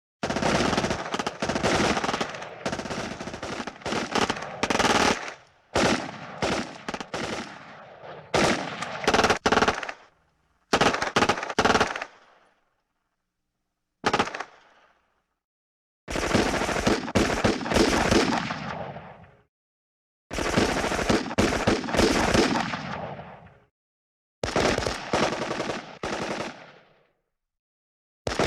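Machine-gun fire: a string of separate bursts of rapid automatic shots. They range from a brief half-second burst to long bursts of several seconds, with short silent gaps between clips.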